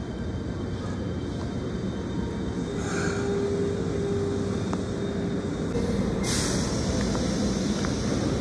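A Fukuoka City Subway 1000N series train pulls into the platform and slows to a stop, with a steady rumble and a steady whine for a few seconds in the middle. A short burst of air hiss comes about six seconds in as it stops.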